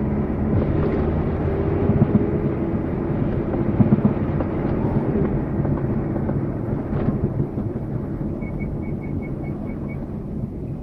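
VAZ 21099 driving, heard from inside the car: a steady engine and road rumble with knocking from the front while the steering wheel is turned left. The owner suspects a worn left CV joint but is not sure.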